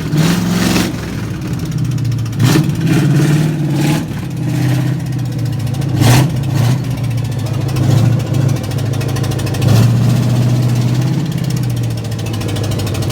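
A vehicle engine running steadily, with several short, louder bursts spread through the stretch.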